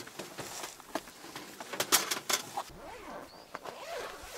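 Fabric rustling and crinkling as a large fabric camping-gear bag is handled and opened on dry grass, with a burst of sharper rustles about two seconds in.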